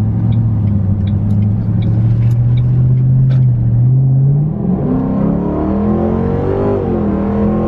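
A 2007 Mustang GT's 4.6-litre V8 engine heard from inside the cabin while driving, pulling with a slowly rising pitch. About four and a half seconds in the pitch drops, then rises and falls again.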